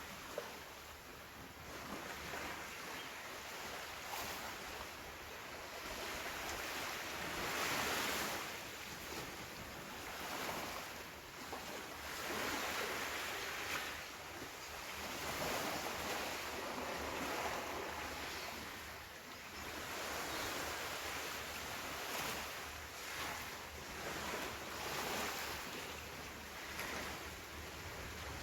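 Ocean waves breaking and washing on a beach, the surf swelling and falling every few seconds, with some wind noise on the phone's microphone.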